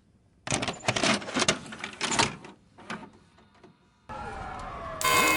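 Mechanical clattering and clunking for about two seconds, tapering off into scattered clicks. A steady hum starts about four seconds in, and a louder sound with several steady tones comes in near the end.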